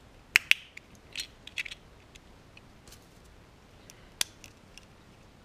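Sharp clicks and small taps from a plastic digital thermometer display unit being handled. Two clicks come close together about half a second in, a short cluster follows a second later, and a single click comes about four seconds in.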